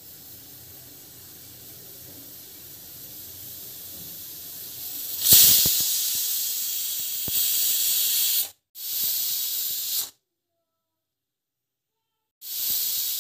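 A stovetop pressure cooker letting out steam under pressure: a steady hiss from the vent that grows slowly, then a much louder burst of escaping steam about five seconds in as the weight lifts to whistle, followed by further short bursts separated by silent gaps.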